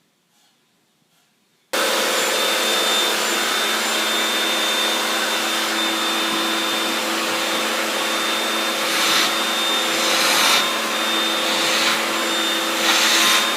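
An electric blower motor starts suddenly about two seconds in and runs steadily with a whining hum, blowing air to clear out a dryer vent, with four brief louder rushes of air in the second half.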